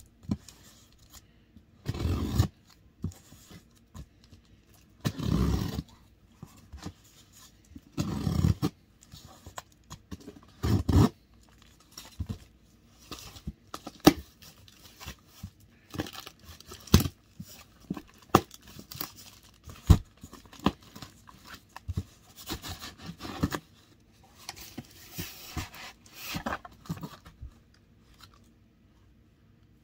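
Scissors and hands opening a cardboard shipping box sealed with clear packing tape: four long noisy rips of tape being torn off, then many sharp clicks and scrapes of cardboard. Near the end, bubble wrap crinkles as the padding is pulled up.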